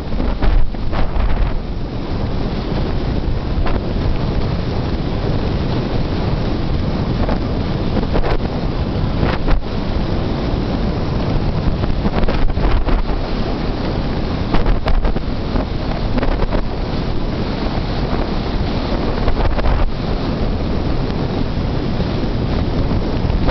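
Wind blasting steadily over a camera microphone held out of the window of a car driving at about 45 mph, with sharp buffeting knocks here and there.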